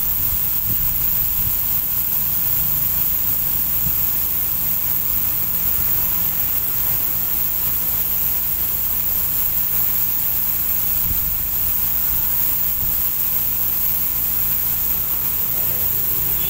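Steady low hum under a constant high hiss, unchanging throughout, like machinery running in the background.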